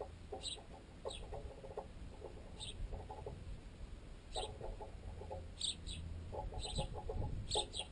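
Sparrows pecking at a piece of baguette clamped in a tent guy line, the pecks carried up the line and tent pole and heard unnaturally loud: quick runs of tapping, with short high chirps between them.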